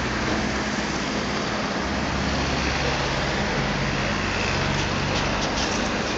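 A steady low engine hum under a constant, even hiss of outdoor noise, with a few faint clicks near the end.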